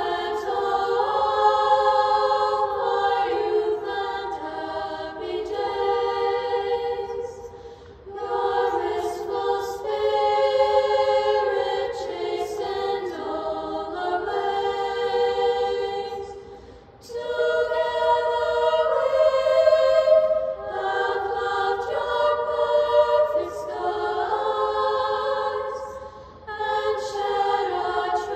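Girls' choir of about a dozen voices singing a cappella in harmony, in sustained phrases with short breaks for breath about every eight to nine seconds.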